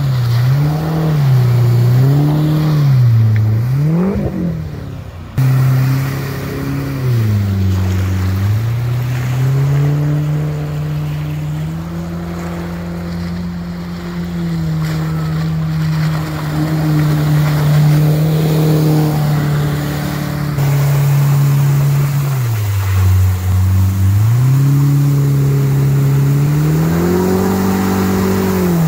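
Mercury outboard motor on a water-jet drive pushing a small boat at speed, its engine note dipping and climbing several times as the throttle is eased and reopened, with a steady stretch in the middle. The sound jumps abruptly twice.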